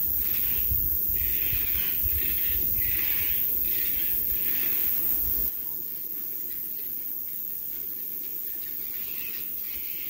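Birds calling in the bush: a run of repeated calls over wind rumbling on the microphone. About five and a half seconds in, the rumble stops and fainter calls continue over a steady hiss.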